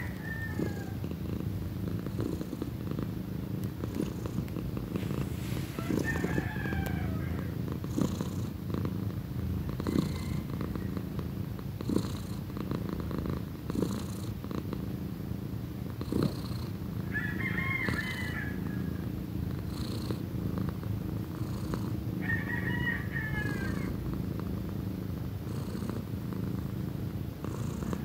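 Young tabby cat purring loudly and steadily, close up, with a few brief high chirps faintly in the background.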